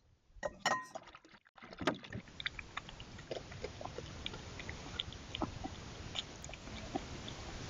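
Water splashing and trickling: a steady hiss with many small scattered splashes and clicks, starting about two seconds in after a brief lull with a few clicks.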